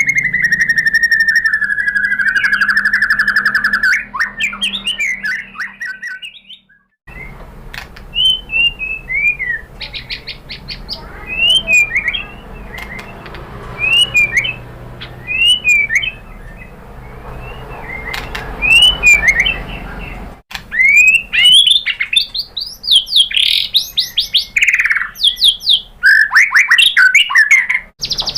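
White-rumped shama (murai batu) singing: a long buzzing trill that slides down in pitch, a short break, then short sharp whistled phrases that grow louder and more crowded toward the end.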